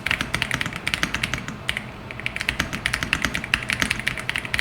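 Fast, irregular typing on an RK Royal Kludge R65 mechanical keyboard: a quick run of crisp keystroke clicks, several a second.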